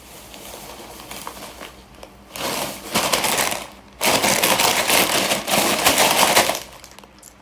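Plastic snack bag crinkling loudly as it is handled and opened, in two bursts of dense rapid crackling from about two seconds in until shortly before the end.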